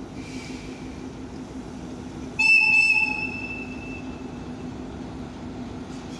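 A locomotive whistle gives one short, high blast about two and a half seconds in, fading away over about a second, above a steady low rumble of railway machinery.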